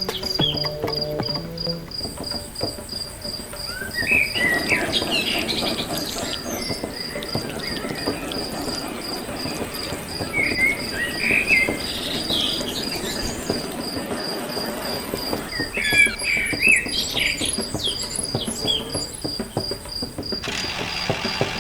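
A cricket trilling steadily in fast even pulses, with a bird chirping in short bursts a few times.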